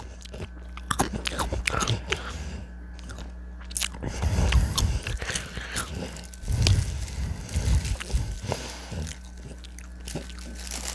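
Close-miked crunching and chewing of chips, with many sharp crunches and heavier bursts of chewing about four seconds in and again near seven seconds.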